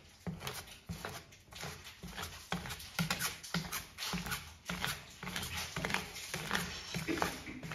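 A metal ice cream spatula tapping and scraping on a frozen ice cream sheet on a steel cold plate, in repeated short strokes about two or three a second.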